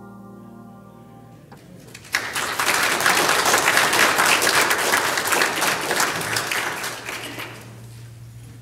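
A grand piano's last chord dies away, then a congregation breaks into applause for about five seconds, tapering off near the end.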